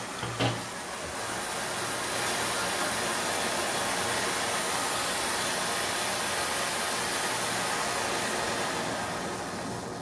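Freshly lit oxy-acetylene brazing torch with a number one tip burning with a steady hiss, getting louder over the first couple of seconds and easing slightly near the end.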